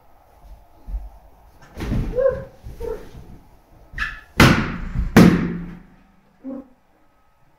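Latex balloons squeaking and thudding as a person's weight shifts onto them, then two loud sharp pops a little under a second apart as balloons burst under the weight.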